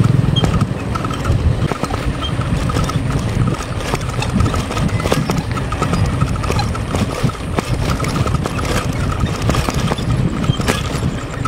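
Wind buffeting the microphone and tyre noise of a road bike rolling over rough concrete, with irregular knocks and rattles as it runs over bumps and cracks.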